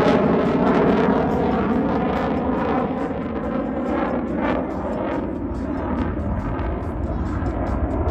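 Airplane engine noise from an aircraft flying past at an air show: a loud rush that is strongest at the start and fades over the first few seconds, then holds at a steady lower level.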